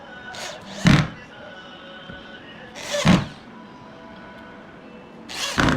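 Three heavy thuds about two seconds apart, each swelling out of a short rush of noise, over soft background music.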